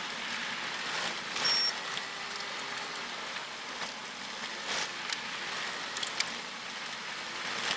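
Tyres rolling over a loose gravel road, heard from inside the SUV: a steady crunching hiss with scattered sharp clicks of stones flicked up against the car.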